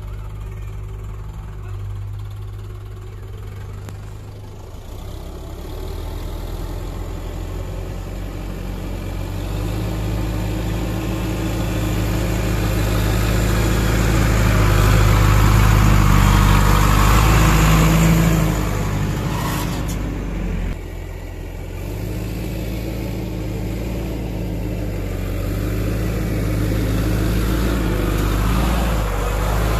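Sonalika 60 RX tractor's diesel engine running as it drives over soft dirt and mud, growing louder through the middle, then falling away abruptly a little past halfway before running steadily again.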